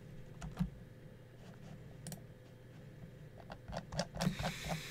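A few faint clicks, then a denser run of small clicks and knocks with a soft rustle near the end, over a faint steady hum.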